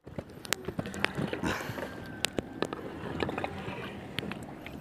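Rope hauled hand over hand over the side of a wooden outrigger boat, raising a fish-trap line: scattered light knocks and taps over faint water sounds.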